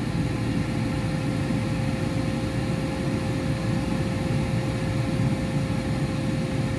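Philips air fryer running on a 200-degree, 10-minute cook: its fan blowing with a steady whir and a constant mid-pitched hum.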